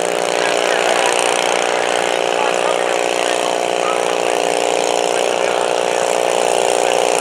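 Stock altered garden pulling tractor's engine running steadily under load as it drags the weighted pulling sled, growing slightly louder as it comes closer.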